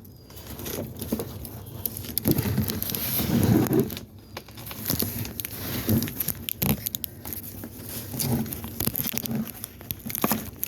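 Packaging being handled: cardboard and plastic wrapping rustling and crinkling, with irregular clicks and knocks, as a part is tugged at and stays stuck in the box.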